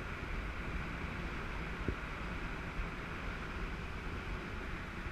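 Steady rushing wind noise on the microphone, heaviest in the low end, with a faint low hum underneath and a brief click about two seconds in.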